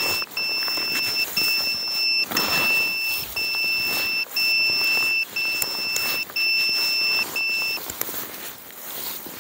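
Electronic warning beeper sounding a steady high double-pitched tone, in about eight long beeps with short gaps, roughly one a second, stopping near the end.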